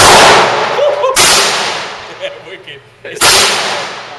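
Three pistol shots from a Glock 45 9mm: one right at the start, one about a second later, and one about two seconds after that. Each shot has a long echoing decay in the enclosed range lane.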